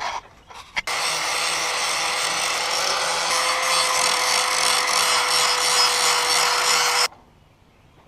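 A power grinder grinding paint off a metal surface down to bare, shiny metal. It starts about a second in and runs steadily with a whine, then cuts off suddenly near the end.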